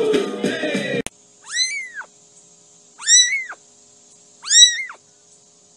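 A kitten meowing three times, about a second and a half apart: high, thin meows, each rising and then falling in pitch. Before them, music cuts off abruptly about a second in.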